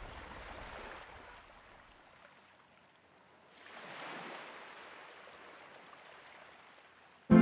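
Faint outdoor ambience: a soft, even hiss of air and water that swells at the start and again about four seconds in. Music cuts in suddenly at the very end.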